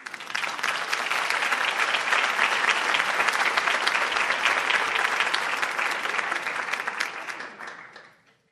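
Audience applauding: many hands clapping in a dense, steady patter that starts abruptly, holds for several seconds, then fades out near the end.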